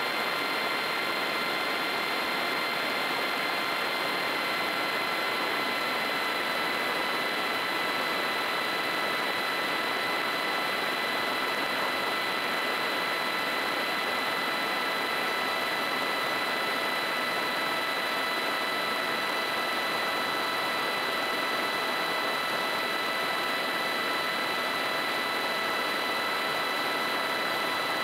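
Rotax 912UL four-cylinder engine and propeller of a Kolb Mark III ultralight running steadily in cruise flight, a constant whine over a broad rushing noise of airflow. The whine settles slightly lower in pitch about five seconds in.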